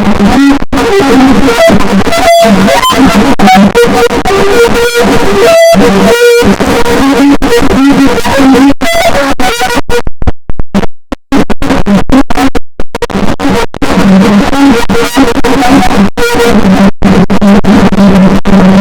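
A sneeze recording run through vocoder effects, turned into loud, clipped, synthesizer-like tones with a steady low pitch and choppy stuttering cuts. It drops out almost to silence for about a second roughly ten seconds in, then the tones resume.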